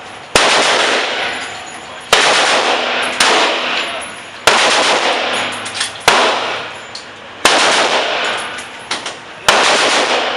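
Seven single gunshots from a firearm, fired one at a time at uneven intervals of about one to two seconds. Each shot is a sharp crack followed by a long echoing decay.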